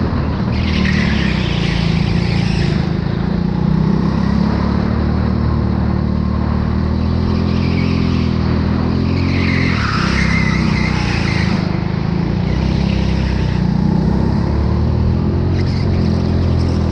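Go-kart engine running under load on track, its pitch drifting up and down with the throttle through the lap. Tyres squeal through corners at about a second in, around ten seconds in, and again near the end.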